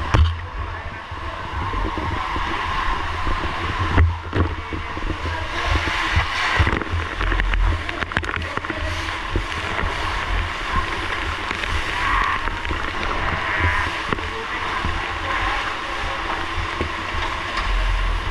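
Fire engine and its water pump running steadily, with water rushing and gurgling from the hoses. A couple of sharp knocks come about 4 and 7 seconds in.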